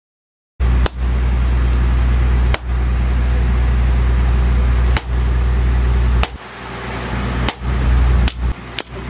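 Sharp metal knocks from knife forging, about seven at irregular spacing, over a loud steady low hum. The hum starts about half a second in, after a moment of silence, and dips near the end.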